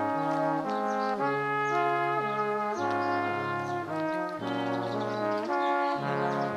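Background music: several held notes sounding together, moving to new chords every half second to a second.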